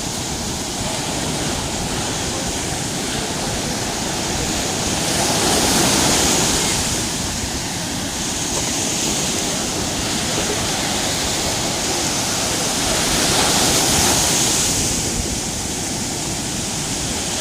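Stormy sea surf: a continuous rush of waves, swelling louder twice as bigger waves break.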